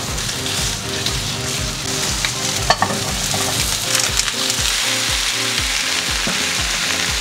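Chicken and vegetables sizzling in hot oil in a frying pan as they are stirred with chopsticks, with a few sharp clicks near the middle. Background music with a steady beat plays underneath.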